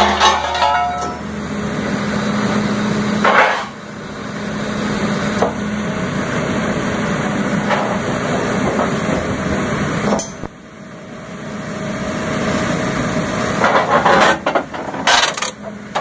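Hydraulic scrap shear of a 2003 Sierra shear/logger/baler cutting scrap steel: loud metal clanks and bangs as the shear blade bites and cut pieces drop, over the steady running of the machine. The bangs come in a cluster at the start, once about three and a half seconds in, and again in a dense run near the end, with the running sound briefly falling away about ten seconds in.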